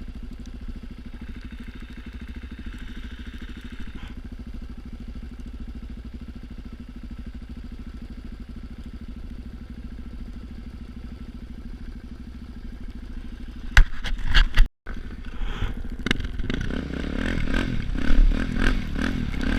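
Motorcycle engine idling steadily. About fourteen seconds in come a few sharp knocks and a brief cut-out, then the engine runs louder amid clattering and rumbling.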